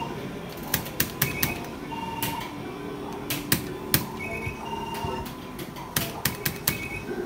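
Electronic bingo machine being played round after round: sharp clicks of its buttons being pressed, several in quick clusters, with short electronic beeps and chimes from the machine.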